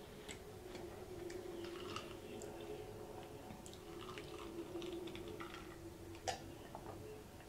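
Close-miked mouth sounds: faint chewing, then sips and swallows of sparkling water from a glass, with small wet clicks throughout and one sharper click about six seconds in. A faint steady hum runs under most of it and stops at that click.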